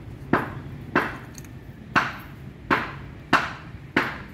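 Six sharp knocks at uneven spacing, each with a short ring, over a low steady background hum.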